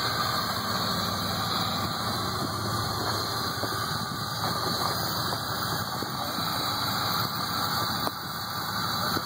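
Rock-crawler buggy's engine running steadily at low speed as it creeps over rocks, with a few faint knocks.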